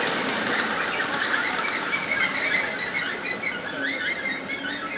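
5-inch gauge ride-on miniature train running along the garden track as it pulls away, with a steady rolling noise and a wavering high squeal.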